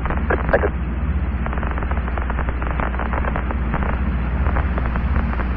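Steady hiss and crackle of the Apollo 11 air-to-ground radio link between transmissions, over a low hum, with a brief clipped fragment of voice about half a second in.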